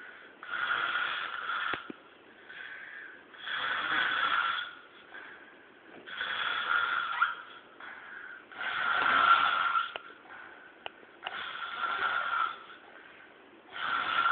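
A person snoring, about six rasping snores each lasting roughly a second, one every two and a half seconds, with quieter breaths between them.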